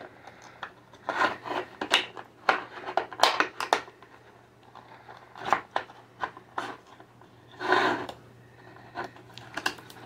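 Wooden skewer pushed and twisted through holes in a thin plastic drink bottle: irregular scraping and crinkling of the plastic in short bursts.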